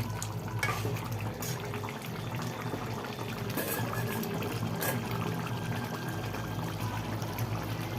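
Chicken kosha curry simmering in the pan with a liquid bubbling noise and a few faint pops, over a steady low hum.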